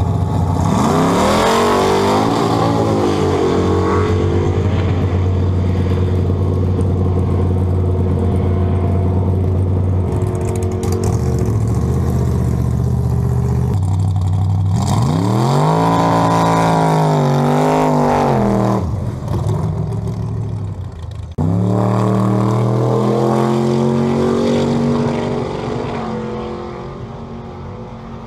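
Drag-race car engines, loud throughout. Revving rises and falls at first, then runs steady for several seconds; another rev climbs and drops back around the middle. After an abrupt break an engine climbs in pitch and fades toward the end.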